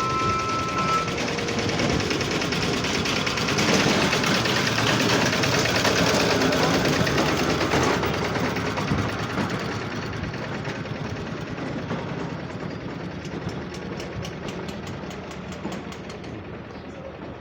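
Train passing: a two-tone horn cuts off about a second in, then a loud rumble that fades away over the second half, with a run of rapid, regular clicks near the end.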